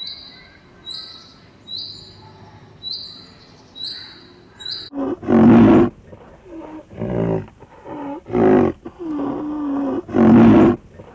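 Loud, deep calls of a white rhinoceros with a wavering pitch, about five of them starting five seconds in. Before them a high, short chirp repeats about once a second.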